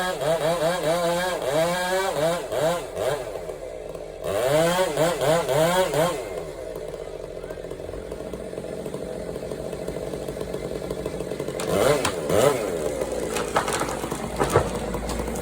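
Chainsaw cutting timber, its engine revving up and down repeatedly for several seconds, then running steadier at lower revs before revving again. A few sharp knocks are heard near the end.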